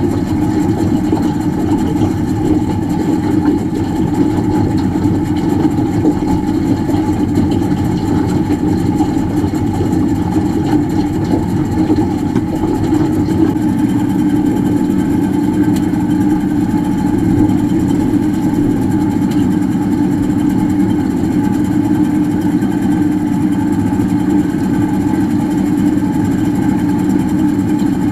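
A boat's engine running steadily.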